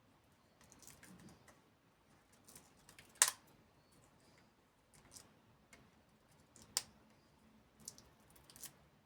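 Scattered small clicks and taps of tools and smartphone parts being handled during a phone teardown, with a sharp click about three seconds in and another about seven seconds in.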